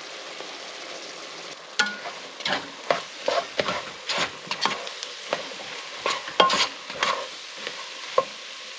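A spoon stirring and scraping against a pot as flour is worked into butter and chopped vegetables to make a roux, with irregular clacks of the spoon on the pot from about two seconds in. The mixture sizzles steadily underneath.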